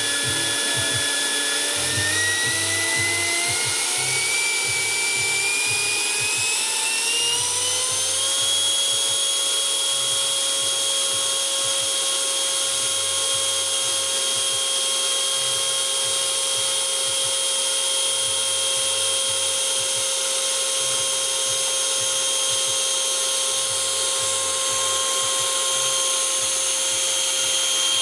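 Electric ducted fan of a radio-controlled MiG-15 model jet spooling up to full throttle. Its whine rises steadily for the first several seconds, then holds at a high, even pitch.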